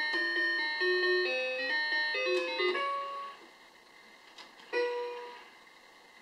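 Electronic tune from a toy spaceship's sound chip: a quick run of clean beeping notes that fades out about three seconds in, followed by a single beep near the end.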